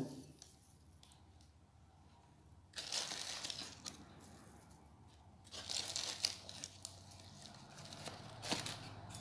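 Dried fenugreek leaves (kasuri methi) being shaken out of a cardboard packet into a glass bowl of flour: faint dry rustling and crinkling in two spells, starting about three seconds in, with small ticks in the second spell.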